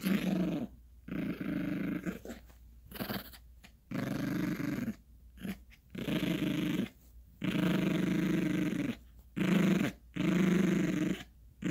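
Yorkshire terrier puppy play-growling while tugging at a plush toy: a string of low growls, each up to about a second and a half long, broken by short pauses.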